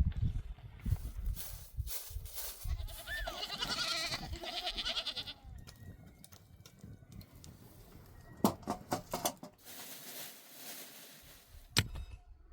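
A single wavering bleat from a sheep or goat of the flock, about three to five seconds in, among low thumps and rustling; a few sharp clicks or knocks follow later.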